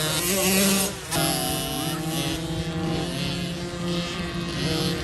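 50cc two-stroke motocross bikes racing at high revs, their engines holding a steady high-pitched note. The sound breaks off and changes abruptly about a second in.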